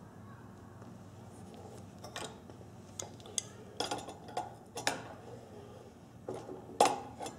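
Steel adjustable wrench clinking against the brass fittings of an oxygen regulator as it is set on the inlet nut and snugged onto the cylinder valve: a run of irregular sharp metallic clinks starting about two seconds in, the loudest near the end.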